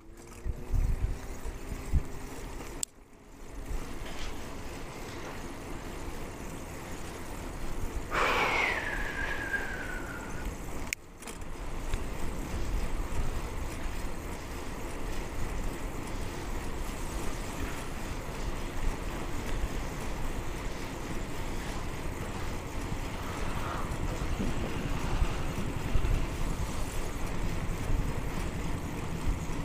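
Steady wind and road rumble on a clip-on microphone while riding a bicycle. The sound drops out briefly twice. About eight seconds in, a single high squeal falls in pitch and lasts about two seconds.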